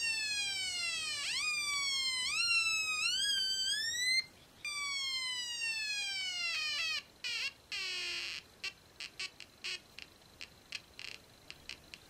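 Two-transistor Funway 1 electronic siren kit sounding through its small loudspeaker: an electronic wail that falls in pitch, then climbs in a series of short saw-tooth steps and cuts off about four seconds in. It starts again with a falling wail, then breaks into stuttering short bleeps that thin out toward the end.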